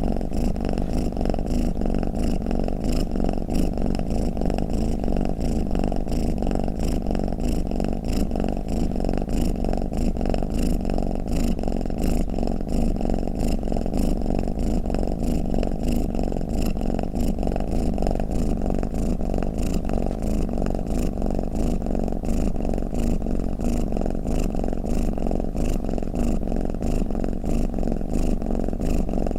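Domestic cat purring steadily: an even, low, fast-pulsing rumble that does not let up.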